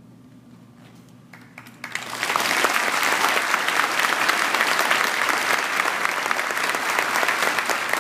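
A large audience applauding: after a quiet start, clapping breaks out about two seconds in and goes on steadily.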